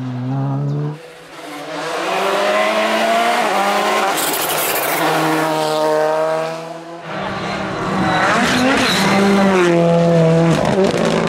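Rally car engines at full throttle, the revs climbing and then dropping sharply at gear changes. The sound changes abruptly about a second in and again about seven seconds in.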